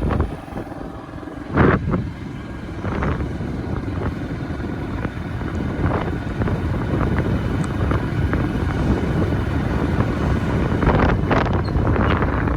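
Steady low rumble with wind buffeting the microphone, broken by a sharp loud gust or knock about two seconds in and a couple more near the end.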